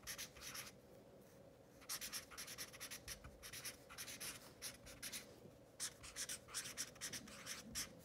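Felt-tip marker writing on a large paper easel pad: a run of short, quick strokes, pausing briefly about a second in and again about five seconds in.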